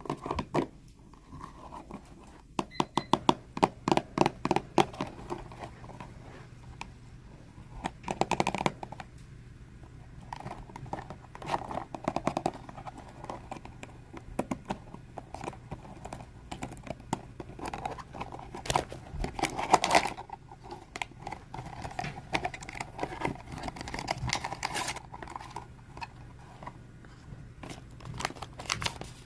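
Long fingernails tapping and scratching on blind-box packaging, with crinkling and tearing of the wrapping as it is opened. Runs of quick taps come in clusters, the busiest a few seconds in.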